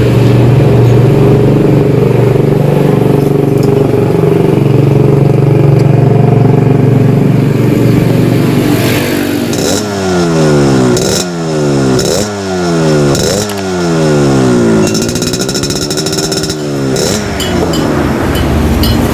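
Yamaha RX-King's single-cylinder two-stroke engine running through a gutted exhaust: it holds a steady speed for about nine seconds, then is blipped about five times in quick succession, each rev rising and dropping sharply, followed by a slower rise and fall.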